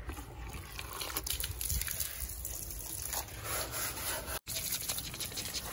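Faint rubbing and handling noise with scattered light clicks, broken by a sudden brief dropout about four and a half seconds in.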